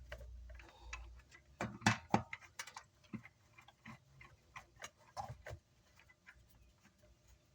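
Irregular clicks and light knocks from a hand-turned Phillips screwdriver driving screws down on a car amplifier.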